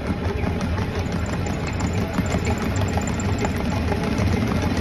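Commercial stand mixer running steadily with its wire whip beating Italian buttercream: a constant low motor hum with no change in speed.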